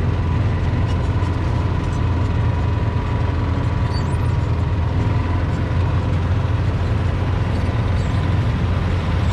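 Engine running steadily close by, a low unbroken drone with a faint constant whine above it, as from the vehicle carrying the recorder at a slow, even pace.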